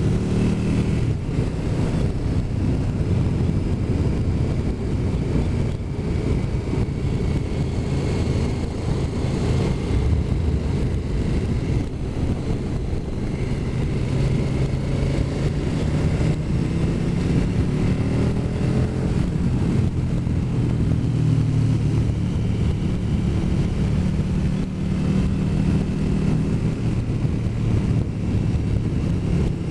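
Motorcycle engine running at road speed over steady wind rush, its note rising and falling gently as the speed changes.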